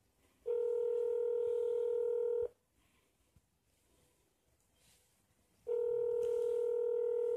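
Telephone ringback tone through a cordless phone's speakerphone: two steady rings of about two seconds each, a few seconds apart, while an outgoing call waits to be answered.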